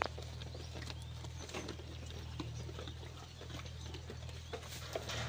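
Sheep feeding: scattered small clicks and rustles of chewing and pulling at fodder, over a steady low hum, with a sharper click at the start and another near the end.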